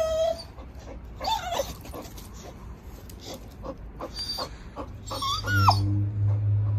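A dog whining in a few short, high whimpers that slide up and down in pitch. A steady low hum comes in about five seconds in.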